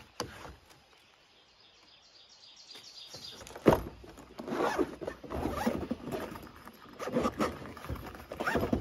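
Zipper of a hard-shell fishing rod carrier case being pulled shut in a series of rasping strokes, after a single sharp knock as the lid is pressed closed a few seconds in.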